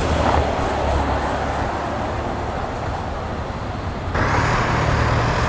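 Ford Explorer police SUV driving past at low speed: engine hum and tyre noise over city traffic, loudest as it passes close about a second in. The noise jumps louder and brighter about four seconds in.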